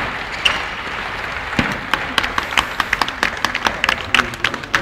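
A small crowd of tennis spectators applauding a finished point. The claps are sparse enough to be heard one by one and thicken about two seconds in.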